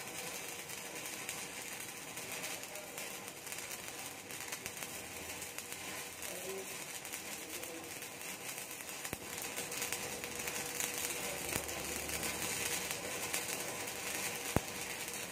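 Stick (shielded metal arc) welding arc crackling steadily as the electrode runs a keyhole root pass along a plate groove joint, with one sharp tick near the end.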